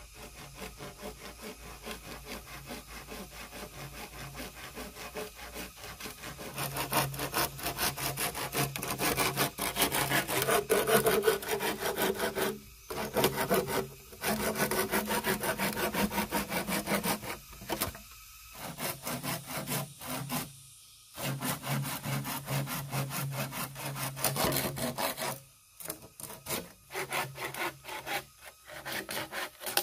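Hand saw cutting through green bamboo poles in quick, even back-and-forth strokes. The sawing is quieter for the first few seconds, grows louder about six seconds in, and stops briefly a few times between strokes.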